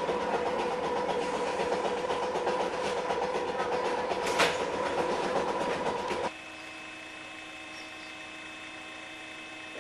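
Electric railcar running over jointed track, heard from inside the cab: a steady whine with rapid clatter of the wheels over the rails and one sharp clack about four seconds in. About six seconds in it cuts abruptly to a much quieter steady hum.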